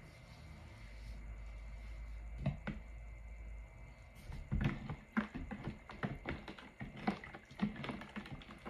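Wooden spoon stirring lye into frozen almond milk cubes in a plastic pitcher, with scattered light clicks and knocks of the spoon and cubes against the plastic, coming thicker in the second half.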